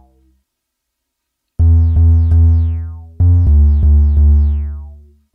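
Omnisphere synthesizer bass line playing solo: deep notes, each struck and then fading, starting about a second and a half in, three notes and then a run of four.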